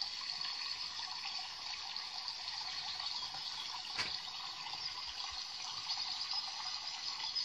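Steady running, trickling water, an even hiss that does not change, with one brief click about four seconds in.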